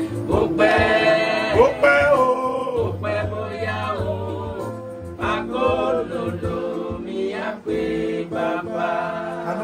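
A group of men singing a gospel song together over sustained electronic keyboard chords.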